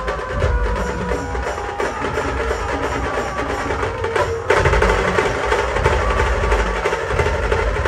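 Loud, percussion-heavy dance music played over a DJ sound system, with a deep bass beat. About four and a half seconds in, the music gets fuller and louder.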